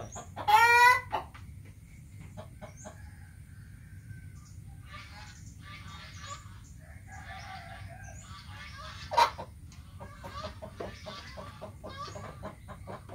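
Chickens clucking, with one loud, wavering call from a chicken about half a second in. A single sharp knock comes about nine seconds in.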